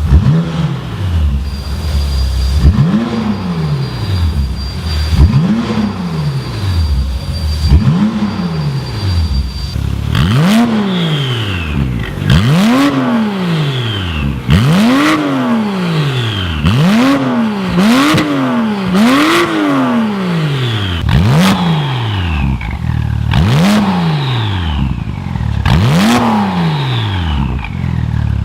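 Porsche 991.2 Carrera S twin-turbo flat-six revved again and again through an Armytrix valved exhaust, about a dozen blips that rise and fall in pitch, quicker in the middle stretch. From about ten seconds in, sharp cracks come between the revs.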